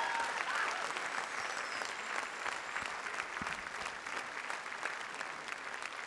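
Theatre audience applauding, a dense patter of many hands clapping that slowly dies down.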